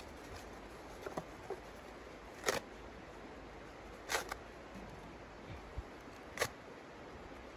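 Hands working at the open firebox of a small steel wood stove: a few faint clicks and rustles, then three short, sharp scraping sounds about two seconds apart.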